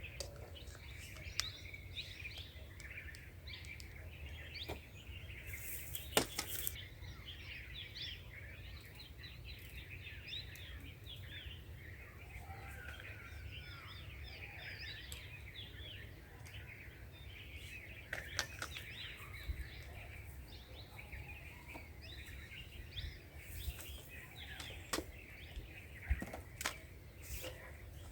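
Wild birds chirping and singing continuously, many quick overlapping calls, with a few sharp clicks and a steady low rumble underneath.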